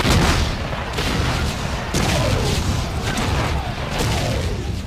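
Battle sound effect of cannon fire: a dense rumble of booms that starts suddenly, with heavier strikes about once a second and several falling whistles.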